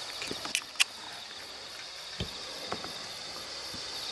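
Ring-pull of a soda can snapping open with two sharp clicks under a second in, followed by a soft low knock about two seconds in. A steady high drone of insects runs underneath.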